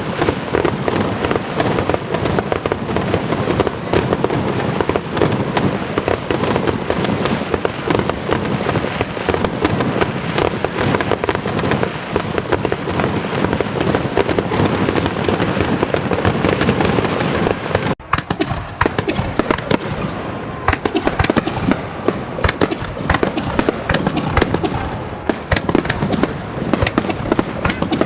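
Aerial fireworks in a dense, continuous barrage of bangs and crackles. The barrage breaks off abruptly for a moment about two-thirds of the way through, then resumes.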